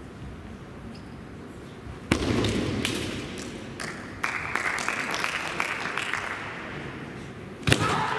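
Kendo bout in a gymnasium: a sharp strike of a bamboo shinai with a stamp on the wooden floor about two seconds in, followed by a few smaller knocks. Spectators clap from about four seconds in, and another sharp strike comes near the end.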